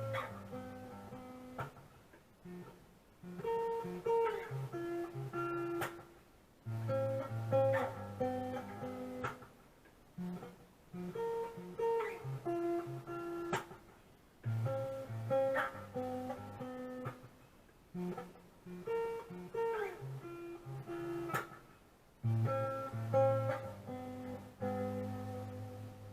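Guitar playing a repeating picked phrase with bass notes under a melody, the phrase coming round about every three to four seconds.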